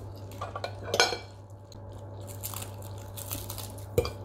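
Metal forks scraping and clinking against ceramic plates as noodles are twirled, with a sharp clink about a second in and another near the end, over a steady low hum.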